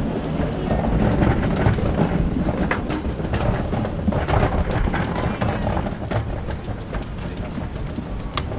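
Wind rumbling on an action camera's microphone, with scattered clicks and knocks.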